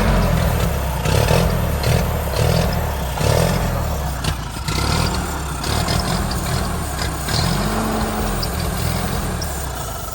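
1945 Ford 2N tractor's four-cylinder flathead engine running after being revived, its speed rising and falling over and over in repeated swells.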